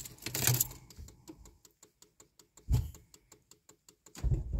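Volvo 850 in-cabin sounds: a brief rustle, then a run of fast, even light ticks and a single clunk. About four seconds in, the engine starts to crank, using a key whose chip the immobilizer does not recognise.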